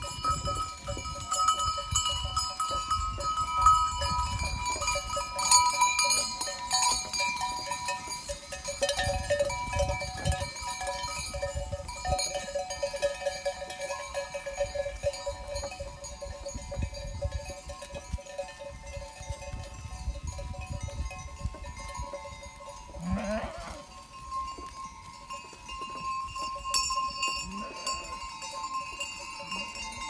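Bells worn by a flock of sheep ringing and clanking together as the flock walks, with a sheep bleating about two-thirds of the way in and again near the end.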